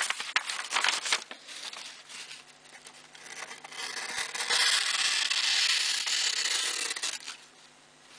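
Paper crackling as a sheet is handled, then about four seconds in a steady rasping hiss of a slipjoint pocket knife's clip point blade slicing through the paper for about three seconds. It is a paper-cutting sharpness test, and the edge is a bit toothy but surprisingly sharp.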